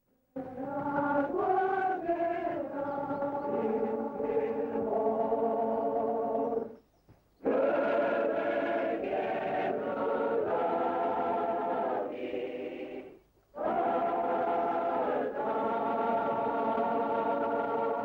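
Choir singing slow, sustained chords as a film score, in three phrases with short breaks about seven and thirteen seconds in.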